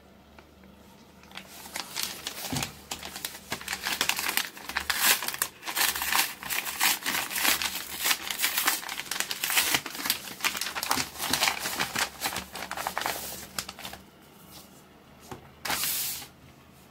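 Padded paper mailing envelope being handled and torn open by hand: a long run of crinkling and rustling paper that dies down, with one more short rustle near the end.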